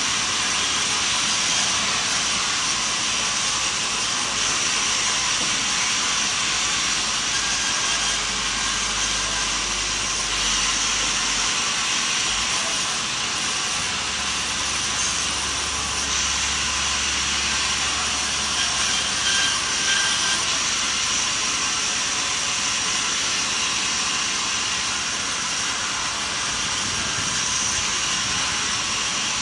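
Sawmill machinery running: a steady, hissing noise that stays even throughout, with no separate cuts or knocks standing out.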